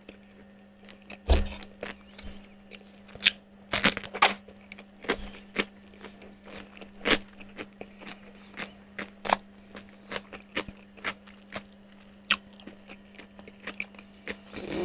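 Close-miked chewing of crispy-coated fried chicken: irregular crunches and mouth smacks, the loudest about a second in and around four seconds in. A steady hum runs underneath.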